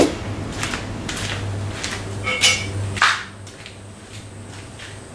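Metal clinks and knocks at a metal lathe: a few light clicks, a ringing clink about two and a half seconds in, and a sharper knock about three seconds in. Under them runs a steady low hum, which cuts off at that knock.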